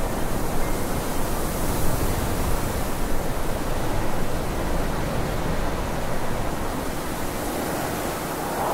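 Steady, even rushing hiss with no distinct events in it.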